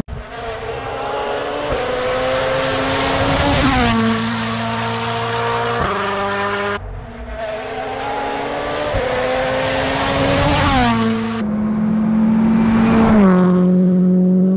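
Rally car engine driven hard, its note climbing and falling back several times as it changes gear.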